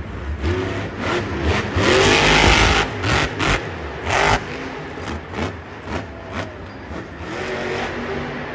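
Monster truck's supercharged V8 engine revving hard in rising and falling surges, loudest about two seconds in, with a few sharp bangs around three to four seconds in as the truck rears up and bounces on its tyres.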